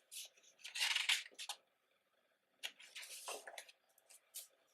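Glossy pages of a large photobook being turned and handled, with short paper rustles and swishes: a longer one about a second in, another around three seconds in, and smaller ones between.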